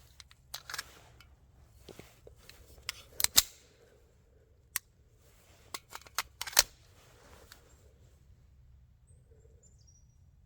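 Pistol handling: a run of sharp metallic clicks and knocks at uneven intervals, the two loudest about three seconds and six and a half seconds in.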